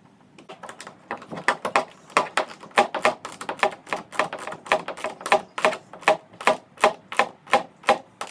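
Hand screwdriver driving a stainless screw through a deck eye into a plastic kayak hull: a steady run of sharp clicks, about three a second, one for each turn of the handle.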